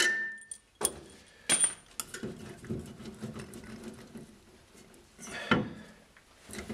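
Metal suspension parts clinking and knocking as a rear upper control arm is handled and fitted into the subframe: a few sharp clinks early on, one short ringing note at the start, and a heavier knock about five and a half seconds in.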